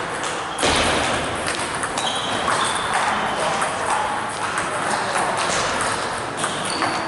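Table tennis rally: the ball clicks sharply again and again as it is struck by the paddles and bounces on the table.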